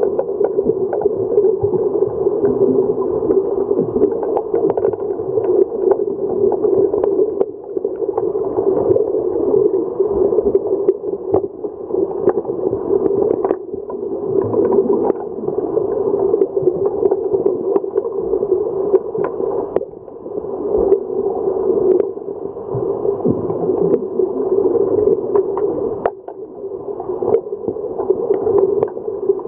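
Underwater pool sound picked up by a submerged camera: a steady muffled rumble with frequent sharp clicks and knocks as underwater hockey players work the puck along the pool floor with their sticks and fins.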